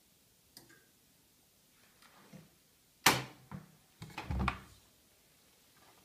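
Front-loading washing machine door being opened: a loud sharp click of the door latch letting go about three seconds in, followed by a few knocks and low clunks as the porthole door swings open. A small click about half a second in comes before it.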